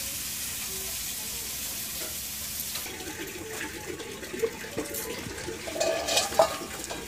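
Rohu fish curry bubbling and hissing in a covered iron kadai over a wood fire. The steady hiss drops away about three seconds in. Sharp metal clinks follow, the loudest near the end, as the steel lid is handled and lifted off the steaming curry.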